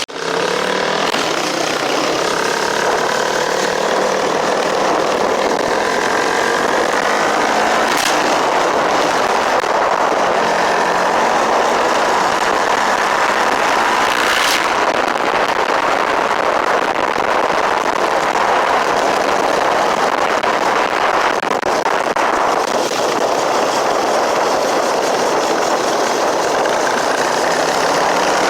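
4K Racing 450cc motorcycle engine running under way, its pitch climbing several times as it accelerates. There are two sharp clicks, about a third of the way in and about halfway.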